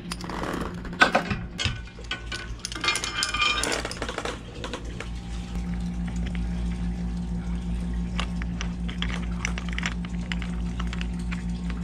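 Scattered metal clinks from a stainless steel bridle hook and shackles being handled and clipped onto a boat's bow fitting, over a steady low hum.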